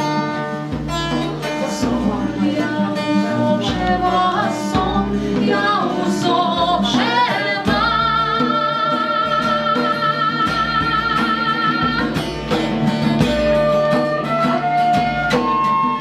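Live band music: guitar over a steady bass line, with a lead melody that glides up and then holds one long vibrato note in the middle.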